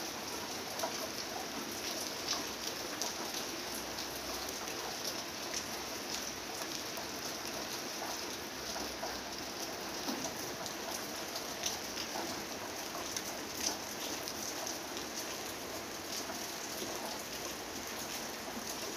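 Steady rain falling on the leaves of a fig tree and surrounding hedges, with many small drop ticks scattered through it.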